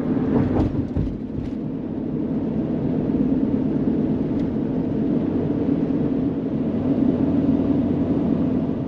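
Steady road and engine noise from inside a vehicle cab driving on the highway, with a few low thumps about a second in.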